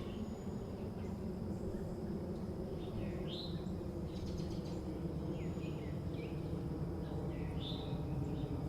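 Early-morning suburban ambience: a steady low background rumble, with a faint steady high whine. Birds chirp a few times, mostly in the middle and near the end.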